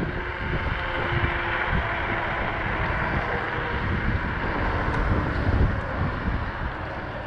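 Wind rushing over the microphone with low road rumble from a moving Apollo Ghost electric scooter at about 20 mph. The noise eases a little near the end as the scooter slows down.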